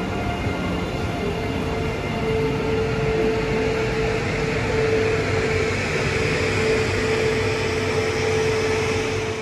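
SJ double-deck electric multiple unit running past close by along the platform. There is the rumble of its wheels on the rails and a steady electric motor whine that sets in about a second in.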